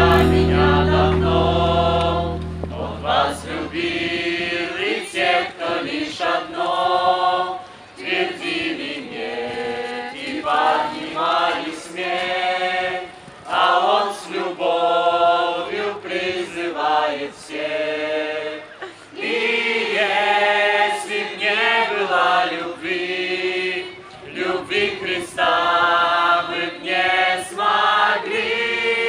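A group of young people singing a worship song together as a choir, mostly unaccompanied. A low instrumental bass under the voices fades out over the first couple of seconds.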